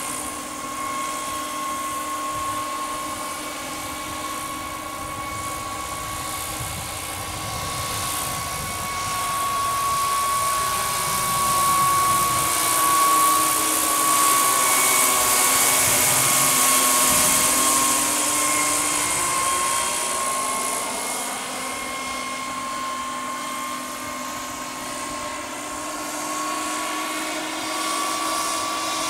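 Turbine-powered RC scale model helicopter, a Sikorsky S-64 Skycrane, flying: a steady high turbine whine over rotor noise. It grows louder as it passes nearest, roughly midway, then eases off again.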